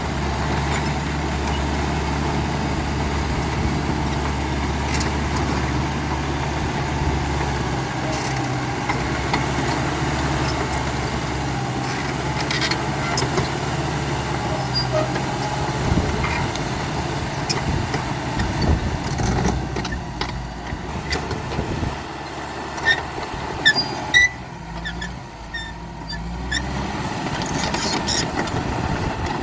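CAT D5K XL bulldozer's diesel engine running steadily under work, its pitch shifting about a quarter of the way in. Near the end the engine note drops and a few sharp knocks ring out.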